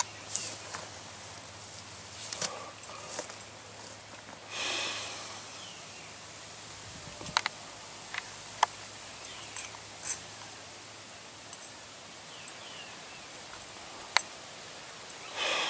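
Barbed wire and tie wire being fastened by hand to a steel star picket: a few sharp metallic clicks, the clearest about halfway through and one near the end, among short bursts of rustling from gloves and grass.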